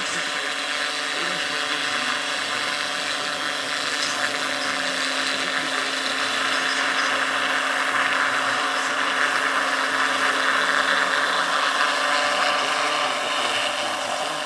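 Electric motor and main rotor of a large-scale RC AS-350 Ecureuil model helicopter (2.5 m rotor), a steady high whine that grows a little louder about halfway through as the model lifts off and hovers.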